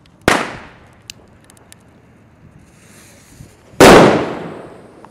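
Two loud firework bangs: a sharp one a fraction of a second in, then a louder one near the end that dies away over about a second, with a faint hiss shortly before it.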